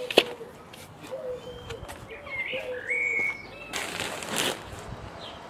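Pigeon cooing, a repeated low coo heard several times, with a higher bird call chirping in the middle. A sharp click comes just after the start, and a plastic compost bag rustles briefly about four seconds in.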